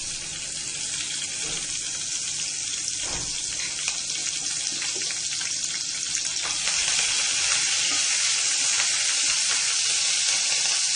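Cumin seeds and curry leaves sizzling and spluttering in about a tablespoon of hot oil, in a steady hiss that gets louder about six and a half seconds in.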